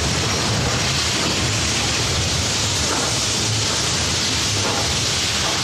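Steam locomotive working at speed: a steady rushing roar with a low rumble underneath and no separate chuffs standing out.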